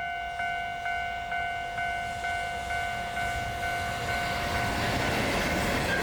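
Japanese level-crossing warning bell ringing at about two strikes a second, then a freight train's rumble rising and covering it from about four and a half seconds in as the train reaches the crossing.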